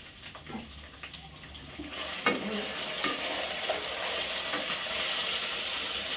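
Chips frying in hot oil: a sizzle that swells about two seconds in and then holds steady, with a sharp clack near its start.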